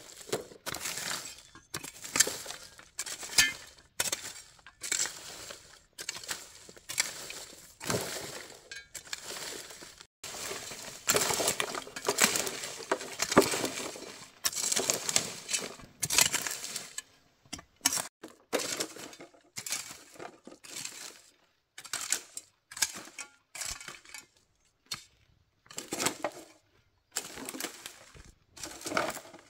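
Hand hoe scraping and chopping through dry leaf litter, twigs and soil in repeated irregular strokes, each with crunching and crackling of the dry debris.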